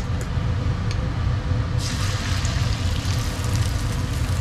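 Beaten carp roe and chicken egg hitting a hot, oiled frying pan, sizzling suddenly from about two seconds in and sizzling on steadily after, over a steady low rumble.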